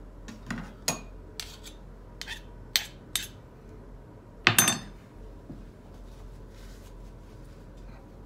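Metal spoon clinking against a glass bowl of canned sprats, a handful of separate clinks in the first three seconds, then a louder clatter about four and a half seconds in as cutlery is set down on a wooden cutting board.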